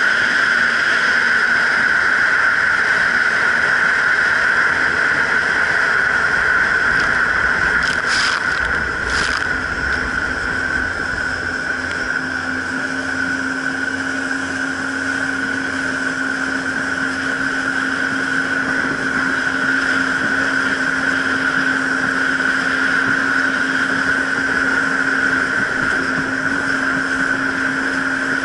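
Jet ski running at a steady cruising speed over choppy water, with a constant high whine and a lower steady hum beneath it. Two brief knocks come about eight and nine seconds in.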